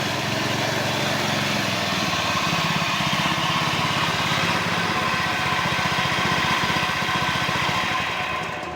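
Concrete vibrator's small engine running steadily at speed with a fast, even pulse, dropping to a lower, quieter running near the end.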